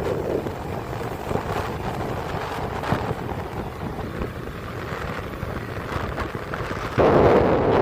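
Wind buffeting the microphone on a moving motorcycle, over road and engine noise; it turns suddenly louder near the end.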